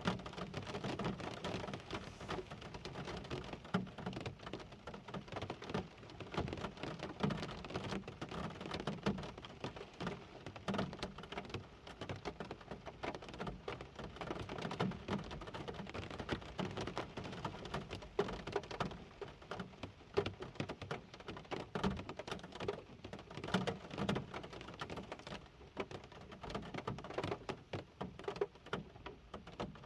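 Steady rain, with a dense run of small drop impacts throughout.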